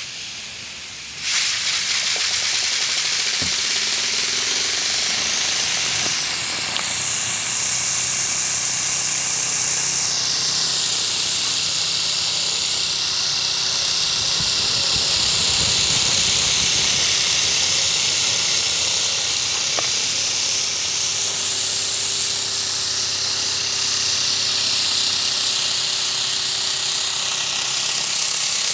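Small steam turbine running on steam from a Mamod model boiler. Steam hisses loudly from about a second in, with a high whine that wanders up and down in pitch as the rotor spins.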